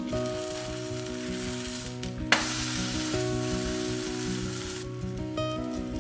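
Cheese-stuffed flatbreads sizzling as they fry in a pan, the sizzle cutting back in suddenly and louder a little over two seconds in.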